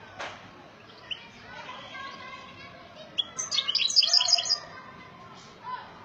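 European goldfinch singing in a cage: a few scattered chirps, then a loud burst of rapid, high twittering song about three seconds in that lasts around a second and a half.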